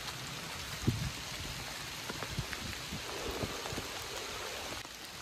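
Steady rain falling, with scattered heavier drips landing; a louder knock about a second in.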